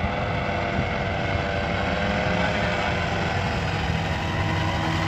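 Paramotor (powered paraglider) engine and propeller running steadily overhead, a constant-pitched buzz.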